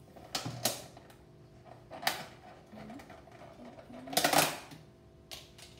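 Kitchen handling noises: a few short, sharp clacks and rattles of utensils and a plastic food container being handled on a countertop, the loudest and longest about four seconds in, over a faint steady hum.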